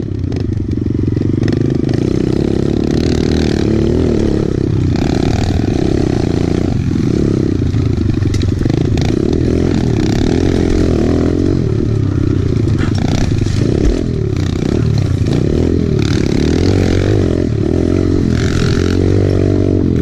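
Kawasaki KLX110 pit bike engines, small air-cooled four-stroke singles, revving up and down continuously as they ride a rough dirt trail. There are rattles and knocks from the bike over the ground, with one sharp knock near the middle.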